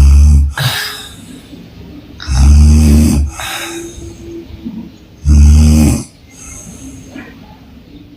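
A woman snoring with her mouth open: three loud snores about two and a half to three seconds apart, each followed by a softer breathy breath.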